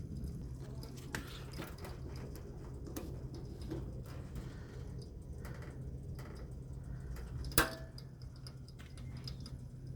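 A steady low hum with scattered light ticks, and one sharp click about three-quarters of the way through, the loudest sound.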